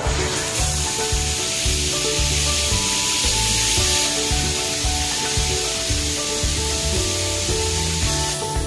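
Water spraying steadily from a newly fitted bathroom shower head as it is tried out, with background music over it; the spray stops near the end.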